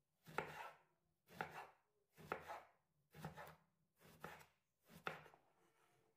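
Knife cutting vegetables on a cutting board: six slow, even cuts about a second apart.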